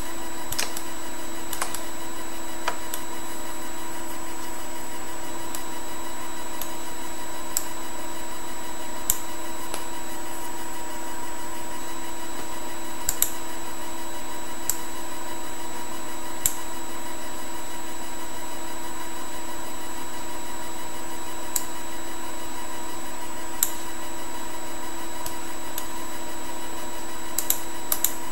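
Steady electrical hum with several constant tones, broken by a dozen or so short sharp computer mouse clicks spaced a few seconds apart.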